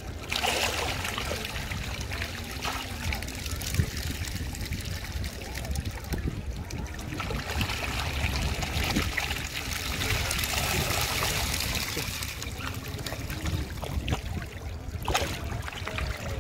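A crowded school of small fish thrashing at the surface of shallow water, making a continuous patter of small splashes and trickling water.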